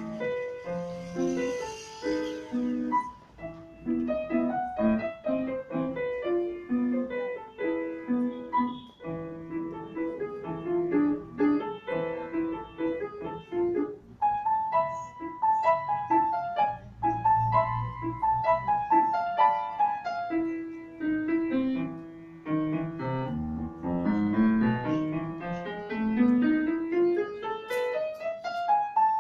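Grand piano played solo, a busy stream of notes over a lower accompaniment. Near the end comes a long run of notes climbing steadily upward.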